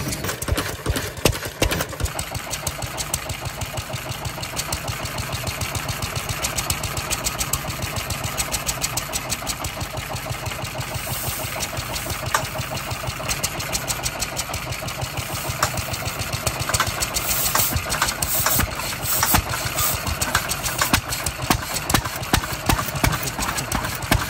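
Kubota E6 6-horsepower kerosene stationary engine running, with a steady, even rhythm of firing beats.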